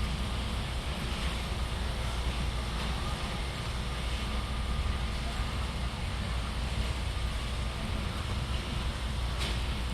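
Steady low rumble and hiss of a large warehouse store's background noise, with one short click near the end.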